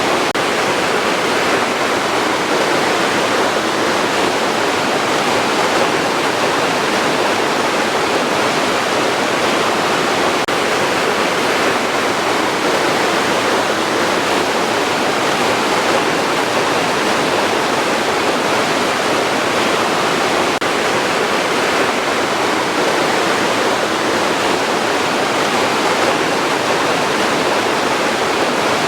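Running water: a steady, unbroken rush of flowing water.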